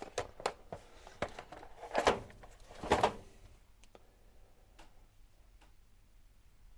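Parts of a gas soldering iron kit being handled and set down: a run of clicks and knocks, the two loudest about two and three seconds in, then a couple of faint clicks.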